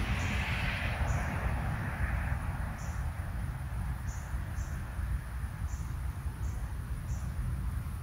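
Garden ambience. A passing vehicle's hiss fades away over the first two seconds above a steady low rumble, while short, high insect chirps recur about once a second.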